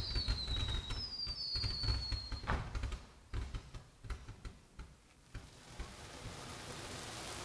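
Fireworks: several whistles falling in pitch over the first two or three seconds, with scattered crackling pops that thin out. Near the end an even hiss sets in as ground spark fountains start spraying.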